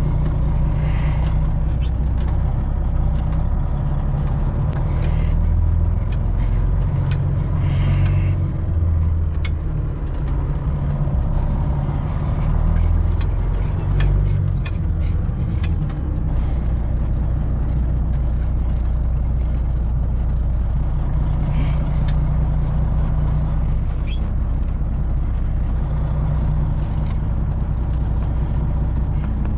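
Semi truck's diesel engine running at low revs while the truck is maneuvered back and forth into a dock, the engine note rising and falling in the first half and then settling to a steady idle, with scattered short clicks and hisses.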